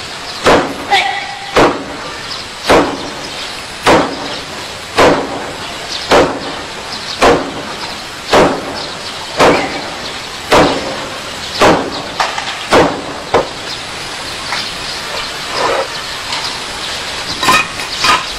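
Hand striking a stack of clay bricks in iron-palm training: a sharp slap about once a second in a steady rhythm, a dozen or so strikes. Near the end the strikes give way to lighter, uneven knocks as single bricks are handled.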